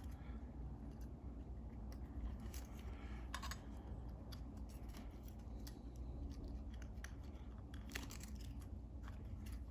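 Aluminium foil crinkling in scattered crackles as it is wrapped and pressed around the bottom of a small battery, over a low steady hum.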